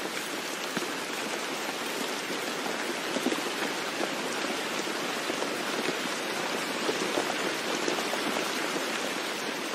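Steady rain falling, an even hiss dotted with many separate drop ticks.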